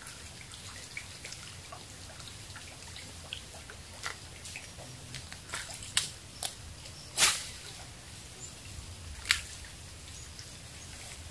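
Small splashes and sharp clicks of a jump-frog soft lure being worked back across shallow water, scattered and irregular, with the loudest splash about seven seconds in and another a little after nine seconds.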